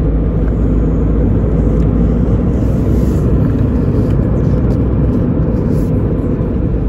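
Steady low rumble heard inside a car's cabin: engine and road noise.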